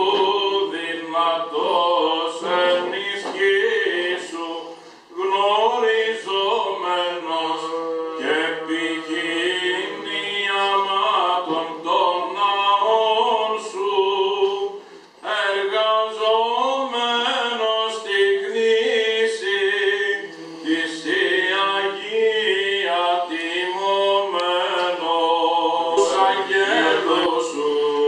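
Unaccompanied male voices singing slow, drawn-out Byzantine Orthodox chant, with short breaks about five and fifteen seconds in.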